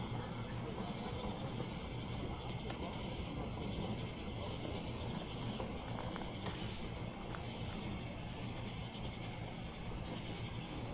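Night insect chorus: a steady high-pitched trilling on two pitches, the lower one dropping out and coming back several times, over a low steady rumble.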